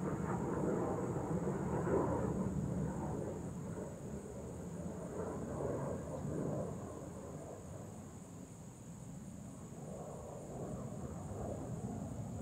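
Distant jet rumble from U.S. Air Force Thunderbirds F-16s, loudest in the first couple of seconds, fading off, then swelling again near the end.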